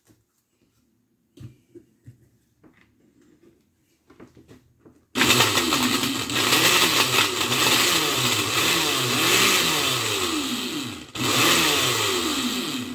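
Countertop blender running with a few playing cards in its glass jar, the blades chopping the cards; the motor's pitch wavers up and down. It starts about five seconds in after some quiet handling, stops briefly near the end, then runs again for about two seconds before cutting off.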